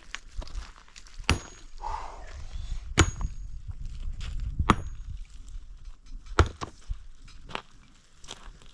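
Five hard blows struck at a steady pace, about one every second and a half, several of them ending in a short, high metallic ring, like a tool striking something hard.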